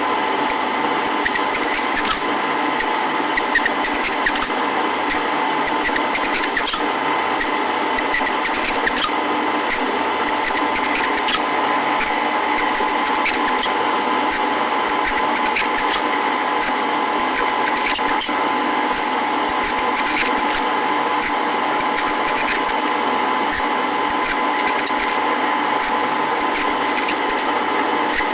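Metal lathe running at low speed while the cutting tool bores a welded-up pulley to a taper: a steady machine hum with light ticks from the cut repeating throughout.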